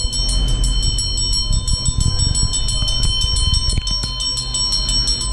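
Rhythmic ritual percussion with jingling, about five strokes a second, steady throughout, over a dense low rumble.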